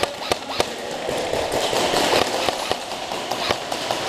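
Airsoft guns firing during a game: a string of sharp, irregularly spaced snaps and cracks.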